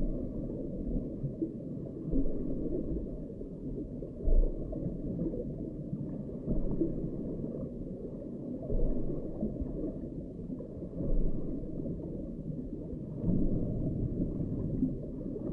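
Muffled low rumble of water picked up through an underwater camera's housing beneath the ice, swelling every couple of seconds.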